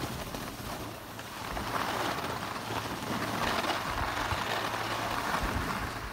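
Edges scraping and hissing over packed, chopped-up piste snow while riding downhill, building about a second and a half in and easing off near the end, with a low rumble of wind on the microphone.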